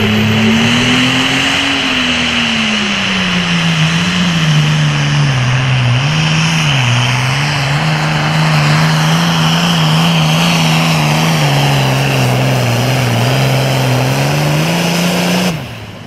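International super farm pulling tractor's turbocharged diesel engine running flat out under load while dragging a weight-transfer sled. The note climbs in the first couple of seconds, then sags and wavers as the sled loads it down, and cuts off suddenly near the end as the tractor makes a full pull.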